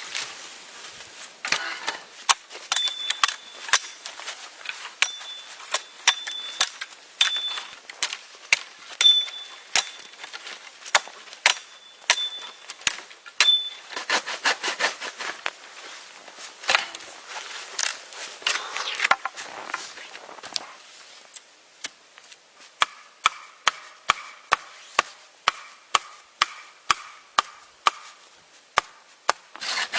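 Wood being chopped with an axe: a long run of sharp, separate blows, one every second or so, coming faster near the end.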